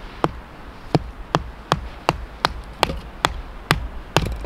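Firewood being split by hand with a blade: a steady series of about a dozen sharp wooden knocks, a little over two a second, bunching closer together near the end.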